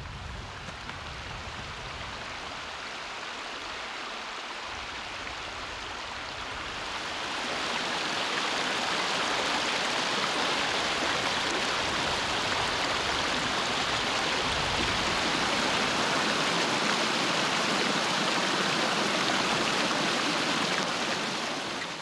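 Steady rushing of a river's flowing water, growing louder about seven seconds in and dropping away near the end.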